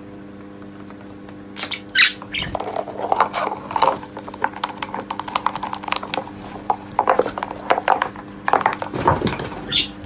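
A parakeet pushing a small clear plastic box across a wooden tabletop: the plastic scrapes, clicks and knocks against the wood in an irregular run that starts about a second and a half in. There are a few short high chirps among the clatter.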